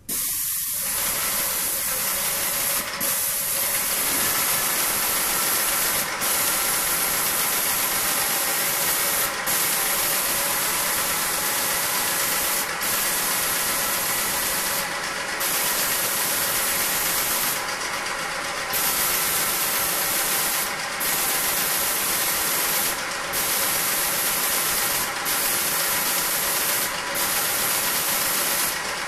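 Paint sprayer running while a ceiling is sprayed: a loud, steady spray hiss over a machine hum, starting suddenly and briefly dropping off every two to three seconds.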